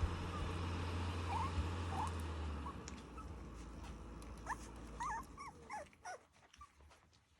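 Three-week-old micro sheepadoodle puppies whimpering and squeaking: a couple of short high cries, then a run of whines about four to six seconds in. A low steady hum underlies the first few seconds.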